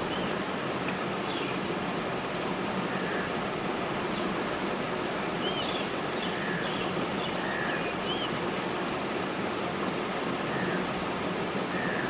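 Steady, even outdoor hiss with a dozen or so faint, short bird chirps and whistles scattered through it.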